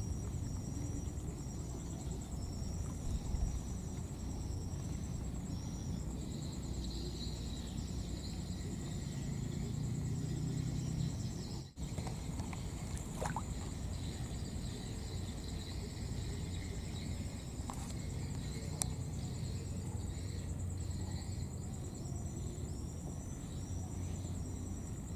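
Outdoor ambience: a steady low rumble under a faint high whine, with short high chirps repeating roughly every half second to second, strongest near the start and toward the end. A brief dropout comes about halfway through, and a couple of faint clicks follow.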